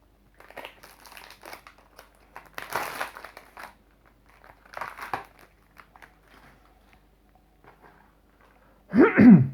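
Plastic shrink wrap being crinkled and torn off a sealed Blu-ray case in several bursts, loudest about three seconds in. Near the end comes a short, loud sound with a sliding pitch.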